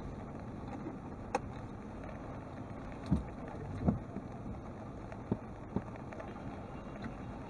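A steady low rumble inside a car cabin, stopped in rain, with a handful of short thumps and a click. The two loudest thumps, about three and four seconds in, come as the windshield wiper makes one sweep.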